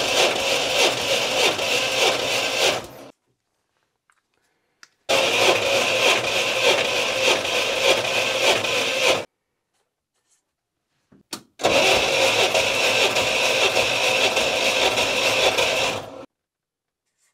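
Starter motor cranking the UAZ 452's four-cylinder engine with the spark plugs out and the throttle wide open for a compression test, in three bursts of about four seconds each with silence between. The cylinders come up even, at about 130 to 140 psi.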